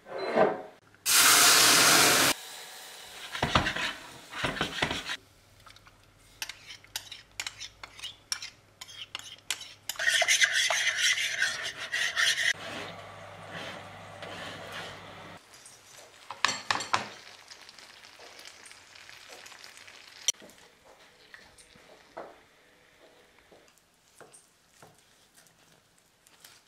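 Kitchen cooking sounds: loud bursts of sizzling from a hot pan, about a second in and again around ten seconds, among clinks, knocks and scrapes of utensils, pans and an oven tray. Near the end, quieter ticks of a knife cutting a cooked rib of beef on a wooden board.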